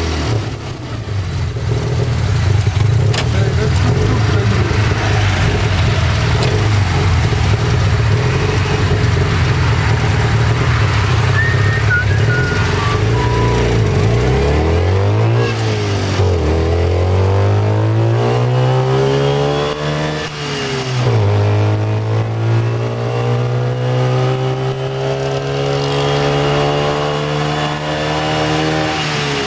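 Tuk tuk engine heard from the passenger seat, running steadily at first. From about halfway its pitch climbs as it speeds up, dropping sharply twice at gear changes, then holds steady, with road and wind noise throughout.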